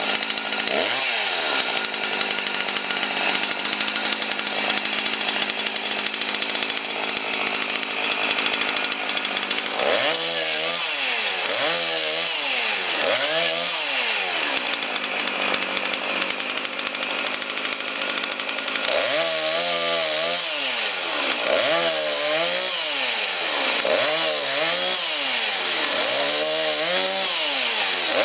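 Petrol chainsaw running at high revs, cutting firewood. Its sound rises and falls in a regular rhythm, about once a second, from about ten seconds in for a few seconds, and again from about nineteen seconds on.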